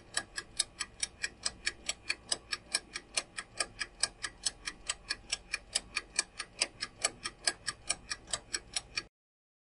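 Countdown timer sound effect: a steady clock-like ticking, about four to five ticks a second, that stops abruptly near the end as the time to answer runs out.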